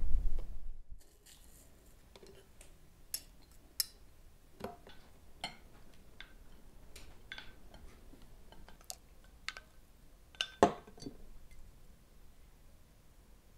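Wooden spoon scraping and tapping against glass bowls, with scattered light clinks of glass as tomato paste and grainy mustard are spooned into a glass mixing bowl; a sharper knock comes about ten seconds in.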